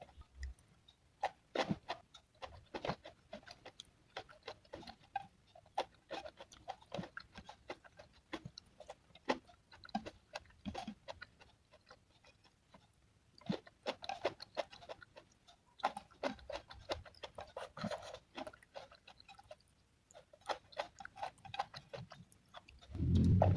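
Close-up eating sounds: irregular clicks and smacks of chewing and lips, several a second with short pauses.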